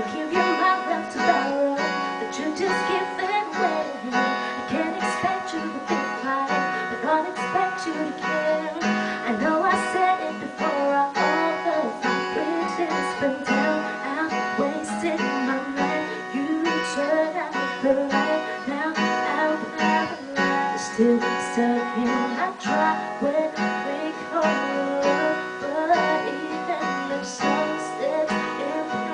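Acoustic guitar being strummed and picked through a chord progression.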